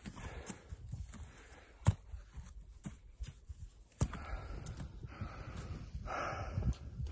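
A winter climber breathing hard and shuffling in snow, with sharp knocks about two and four seconds in. From about four seconds in a louder, steady noise takes over.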